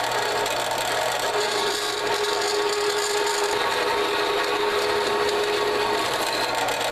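Bandsaw cutting into 1/2-inch schedule 40 steel pipe: a steady, loud rasp of the blade through the metal over the motor's hum, with a faint steady ringing tone from about a second in. The cut stops at the very end.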